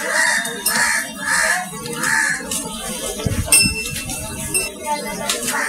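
A bird's repeated short calls, about two a second, through the first half, then sparser fainter sounds.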